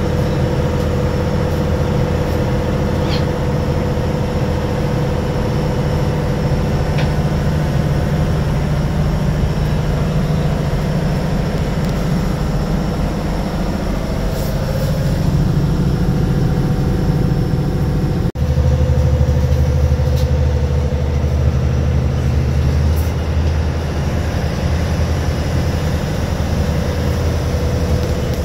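A longliner's inboard diesel engine running steadily under way, a constant low drone heard from inside the wheelhouse. It breaks off for an instant about two-thirds of the way through, then carries on at a slightly different pitch.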